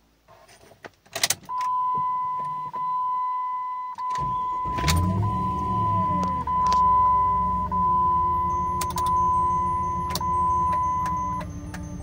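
A few clicks, then the Jeep Grand Cherokee's dashboard warning chime sounds as repeated tones about every second. About four seconds in, the 4.7 V8 starts, flares up in revs and settles to idle while the chime goes on; the chime stops shortly before the end.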